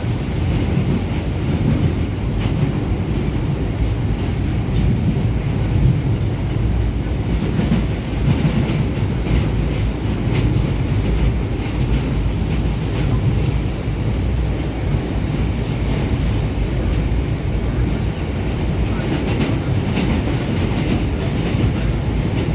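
Subway train running at speed through a tunnel, heard from on board: a steady low rumble with repeated knocking from the wheels on the track.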